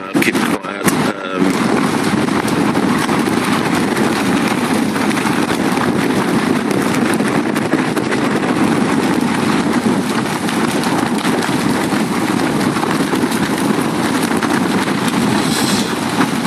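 The fabric of a North Face Mountain 25 tent flapping and shaking rapidly in very strong wind, estimated at 50–60 mph, heard from inside the tent as a loud continuous racket. A few sharp snaps come in the first second or so before it settles into the steady din.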